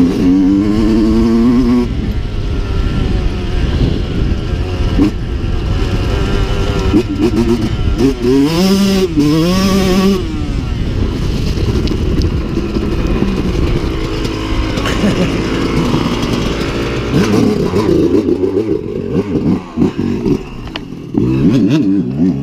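Dirt bike engine heard from on board while riding a gravel track, the revs rising and falling repeatedly as the throttle opens and closes. Near the end the engine drops off as the bike slows to a stop.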